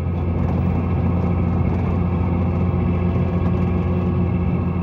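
Truck engine running steadily while driving, heard from inside the cab as a low, even drone over tyre and road noise.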